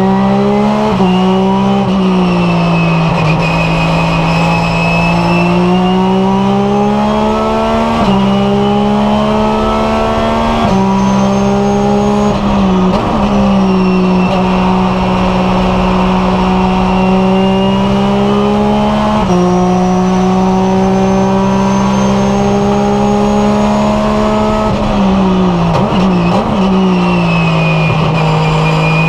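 Porsche 996 GT3 RSR's naturally aspirated flat-six racing engine heard from inside the cockpit under hard acceleration. The revs climb and drop through the gear changes, with several sudden jumps up in pitch where it shifts down for corners. A thin high whine rides above the engine note.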